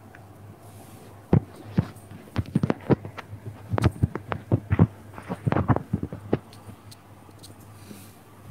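Irregular thumps and knocks of microphone handling noise, coming thick and fast from about a second in until about six seconds in, over a faint steady low hum.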